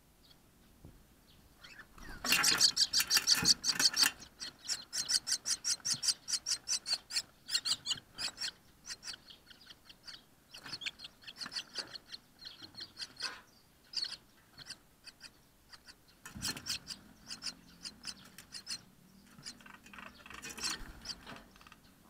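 Myna nestlings begging: a fast run of harsh, raspy calls, loudest from about two to four seconds in and then tapering off, with further bursts later on as a parent feeds them at the nest.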